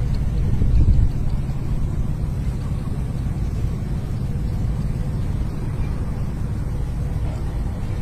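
Wind buffeting the microphone: a steady low rumble that swells briefly about a second in.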